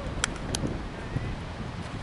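Two sharp hand claps close to the microphone near the start, then steady wind noise on the microphone with faint voices in the background.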